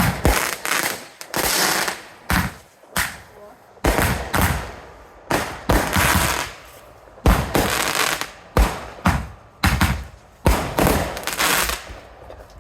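Fireworks going off: a quick, irregular run of sharp bangs, many followed by a crackling hiss lasting up to about a second, and several reports close together.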